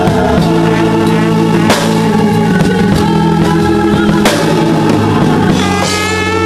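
Live church praise-band music: a slide trombone playing sustained notes over a drum kit, with crashes about two seconds in and again near four seconds.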